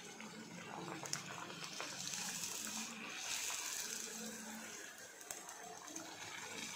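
Golgappa puris deep-frying in hot oil: a steady sizzling and bubbling hiss, with a few light clicks, the first about a second in, as a steel slotted spoon presses and turns them.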